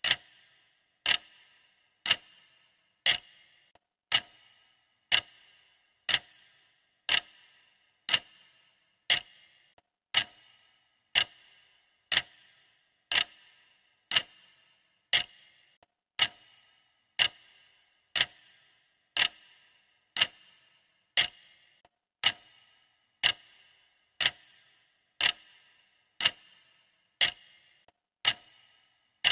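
Clock ticking steadily, about one tick a second, each tick sharp with a short ringing tail.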